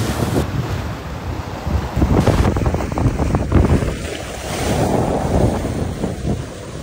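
Wind buffeting the microphone in uneven gusts, with waves washing behind it.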